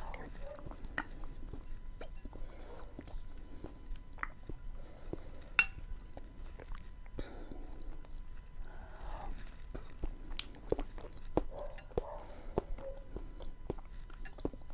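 Close-miked chewing and wet mouth sounds of someone eating porotos, beans with onion and tomato, with many sharp mouth clicks scattered throughout and one stronger click about five and a half seconds in.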